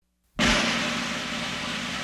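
A rushing, hiss-like noise that starts abruptly about a third of a second in and then holds steady.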